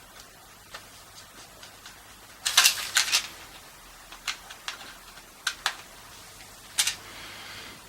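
Clicks and light clatter of small screws, a screwdriver and plastic car-radio parts being handled: a cluster of knocks about two and a half seconds in, then single sharp ticks, and a brief soft scrape near the end.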